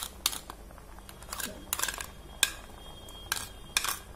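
Metal spoon scraping and tapping grated onion off a plastic bowl into a steel pot of boiling water: a series of short clinks and scrapes at uneven intervals.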